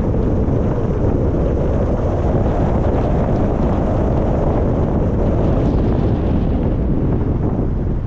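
Steady, loud low rumble of wind buffeting the microphone, with no distinct events.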